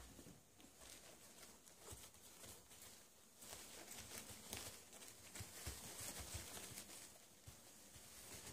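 Faint rustling and light patter of Cavalier King Charles spaniel puppies moving about and nosing on fleece blankets.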